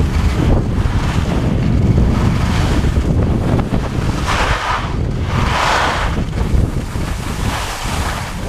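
Wind buffeting the microphone of a skier going downhill, a steady low rumble, with the hiss of skis scraping across the snow swelling twice in the middle.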